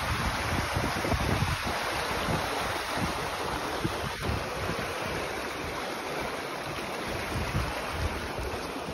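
Fast-flowing rocky stream rushing over stones, a steady hiss, with wind buffeting the microphone in irregular low rumbles.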